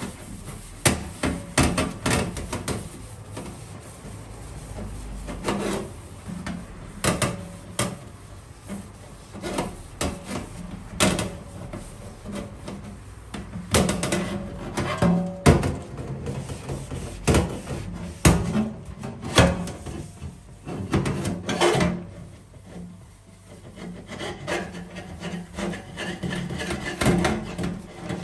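A sponge scrubbing a soapy stainless steel tray in repeated, uneven rubbing and scraping strokes, some louder than others.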